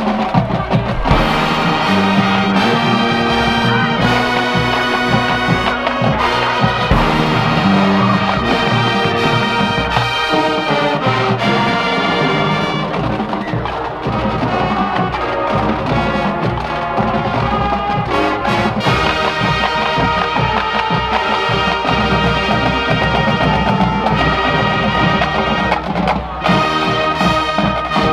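High school marching band playing live: full brass chords over drums and percussion, continuous and loud.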